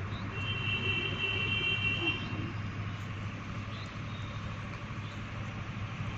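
Steady low engine hum, like motor traffic running nearby, with a high steady tone lasting about two seconds near the start.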